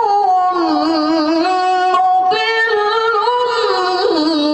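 An adult man chanting Quran recitation (tilawah) in one long, ornamented melodic line. He draws out the word 'aduwwun with wavering turns that step gradually lower in pitch.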